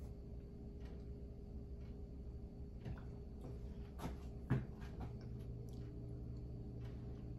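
Quiet room tone with a low steady hum that gets slightly stronger about five seconds in. There are a few faint clicks and a soft knock about four and a half seconds in.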